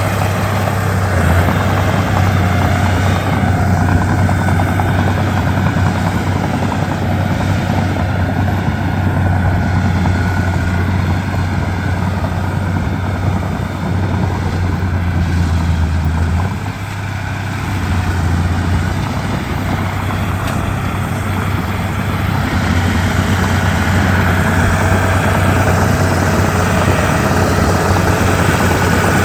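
Komatsu D31P bulldozer's diesel engine running steadily under work, with a strong low hum. The hum drops briefly a little past halfway, then comes back.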